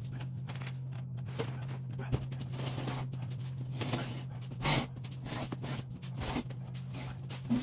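A man straining and breathing hard, with short grunts and gasps, as he pushes a heavy table loaded with a big wood slab. A steady low hum runs underneath.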